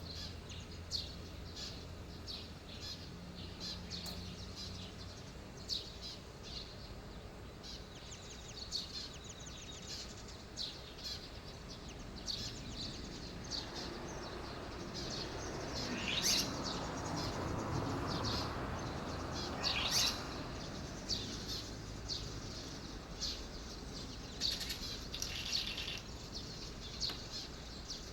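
Red-rumped swallow giving many short, high chirping calls to its mate, scattered throughout, two of them louder about halfway through. A broad rushing noise swells and fades in the middle.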